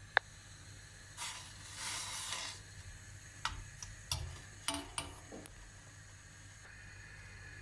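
Kitchenware being handled while tea is made: a sharp click, then a hiss lasting about a second, then a handful of light clinks and taps.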